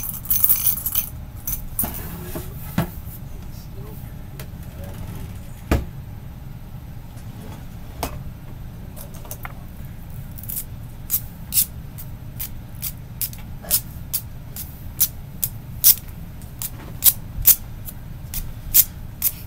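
Small objects being handled for ASMR triggers: a run of sharp clicks and taps, a few at first and then about two a second in the second half, over a steady low hum.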